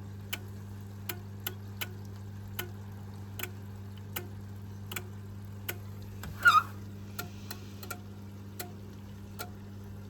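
Homemaker 7 kg top-loading agitator washing machine in its drain stage: the mechanical timer ticks steadily, about four ticks every three seconds, over the low steady hum of the very quiet drain pump, the timer holding until the tub has drained before it clicks into spin. A brief, louder pitched squeak sounds about six and a half seconds in.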